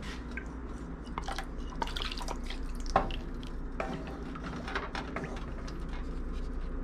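Coconut milk poured and scraped from a bowl into a steel pan with a wooden spatula: liquid dripping and splashing, with the spatula tapping and knocking against the bowl and pan. One sharper knock comes about three seconds in, over a steady low hum.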